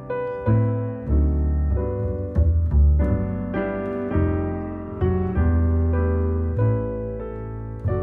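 Background piano music: a steady run of struck notes and chords over low bass notes.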